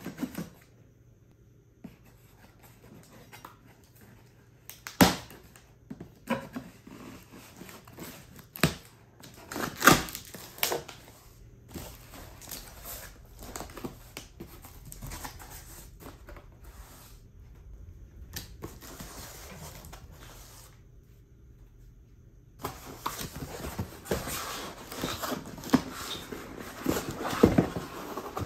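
Cardboard shipping box being opened and handled on a wooden table: scattered knocks and scrapes with a few sharp thumps, a short quiet spell, then several seconds of continuous cardboard scraping and rustling near the end.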